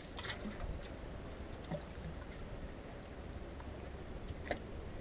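Faint steady low rumble of wind and calm sea, with a few light clicks, one just after the start and one near the end.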